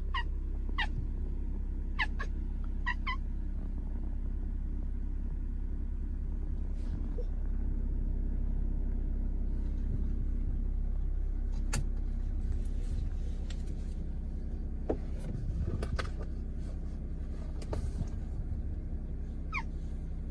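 Domestic cat giving short, weak chirping meows at a crow: a quick run of five in the first few seconds and one more near the end. The cries are meant as a threat but are too feeble to scare the bird. A steady low rumble of traffic runs underneath.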